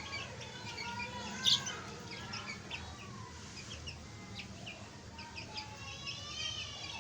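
A group of chicks peeping: many short, high chirps overlapping, with one louder peep about a second and a half in.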